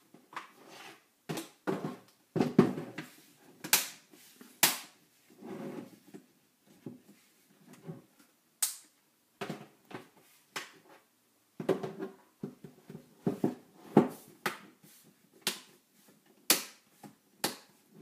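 Plastic snap clips of an Acer Aspire ES1-511 laptop's case clicking into place as the two halves are squeezed together along the edge: a dozen or more sharp, irregular snaps, with plastic rubbing and handling between them.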